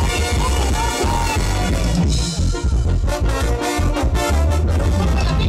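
Mexican regional band music at a dance: an instrumental passage of a corrido between sung verses, with a heavy, steady bass beat.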